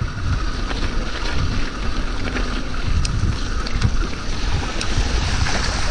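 Mountain bike riding over a wet, muddy trail: tyres rolling through mud and standing water, with wind buffeting the action-camera microphone and a few sharp clicks and rattles from the bike.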